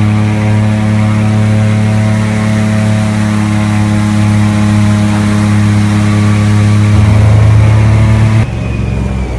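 Airboat engine and air propeller running steadily at speed with a loud, even drone. About eight and a half seconds in, the throttle is cut back: the sound drops suddenly and its pitch starts to slide down.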